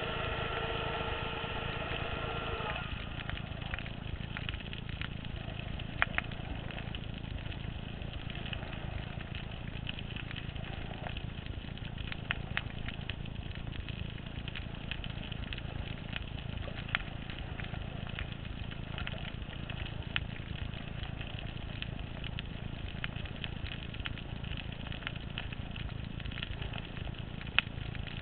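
Underwater sound picked up through a GoPro Hero housing while snorkeling over a reef: a steady low rumble with scattered sharp clicks. At the start an engine's steady hum is also heard, stopping about three seconds in.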